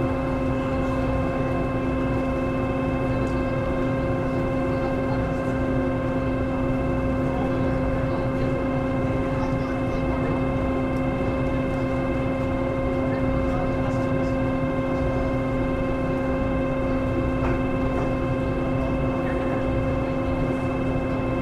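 Passenger ferry's engine and onboard machinery running steadily while moored at the pier: a low rumble under a steady whining hum with several higher overtones.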